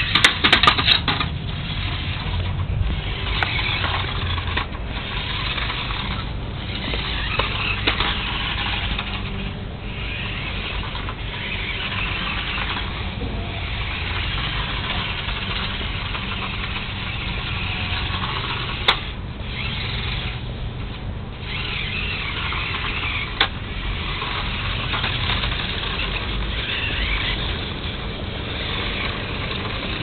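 Toy radio-control monster truck's small electric motor and gears whirring, easing off and picking up again several times. A quick rattle of clicks comes in the first second.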